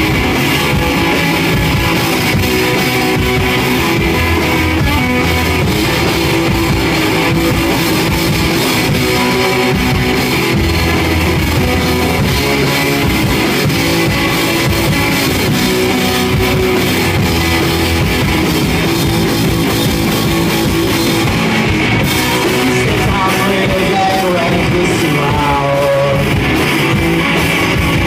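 Live rock band playing loudly and steadily on electric guitars and a drum kit.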